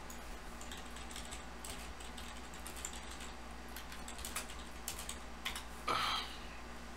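Computer keyboard typing: a run of light, irregular key clicks, then a brief louder noise about six seconds in.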